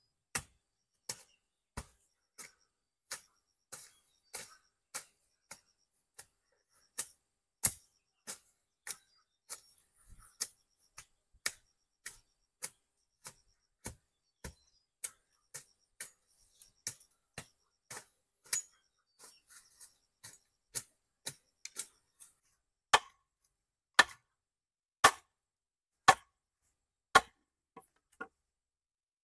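Hand-tool chopping: a steady series of sharp strikes, about one and a half a second, slowing to about one a second and sounding fuller over the last several seconds.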